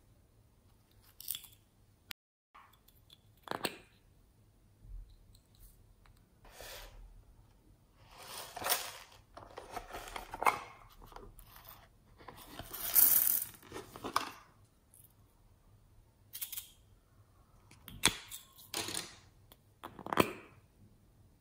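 Hands handling small plastic toys and containers: scattered bursts of crinkling, rustling and scraping with sharp clicks, the loudest stretch a little past halfway.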